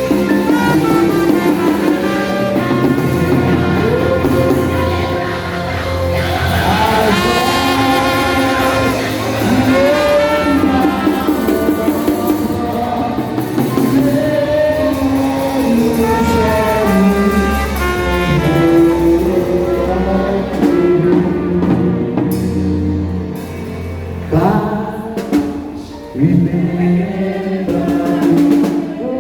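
Music with singing over instruments and a drum beat.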